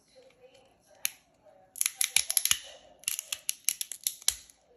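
Cooked crab shell cracking and snapping as fingers pry it apart: a single snap about a second in, then two runs of rapid crisp crackles.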